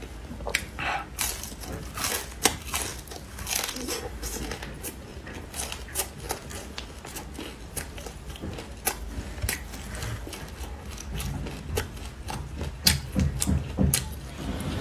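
Crispy fried shredded potato pancakes crunching and crackling as pieces are torn off by hand and chewed: an irregular run of sharp, dry crunches.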